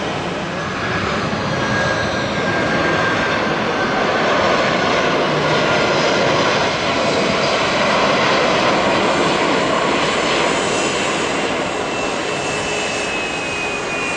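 Jet airliner's engines passing close by: a loud roar that builds to a peak in the middle and then eases, with a high engine whine that slowly falls in pitch.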